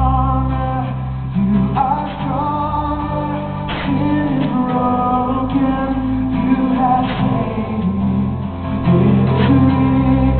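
Live worship song: a man singing with an acoustic guitar, held sung notes over steady low bass notes.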